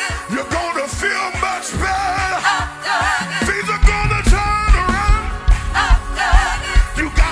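Live gospel praise-and-worship music: several singers leading with band accompaniment over a steady beat. The bass and drums get heavier about four seconds in.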